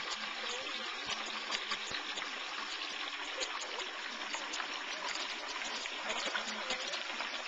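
A whole turkey deep-frying in hot oil in an outdoor fryer pot: a steady sizzling hiss dotted with many small crackles and pops.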